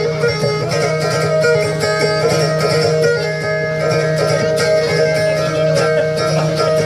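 Live instrumental music: a plucked string instrument playing a run of quick notes over steady held drone notes, with no singing in this stretch.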